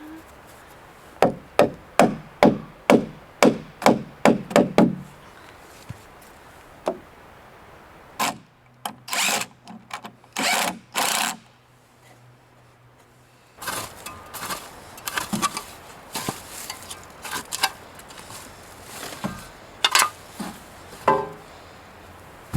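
A hammer striking cedar boards, about ten sharp blows at two to three a second. This is followed by a few longer rasping strokes and then scattered knocks of wood and tools being handled.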